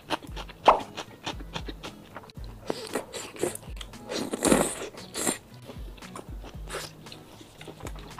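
Close-miked eating sounds: a bite into a skewered piece of food from a bowl of chili oil, then wet chewing and mouth noises, busiest a few seconds in. Background music with a steady low beat runs underneath.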